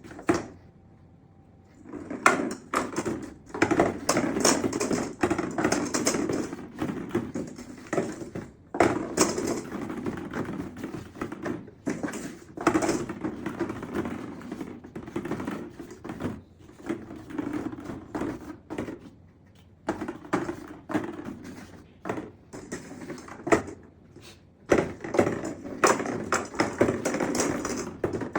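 Irregular tapping, knocking and clattering, many sharp hits in quick succession, broken by short pauses.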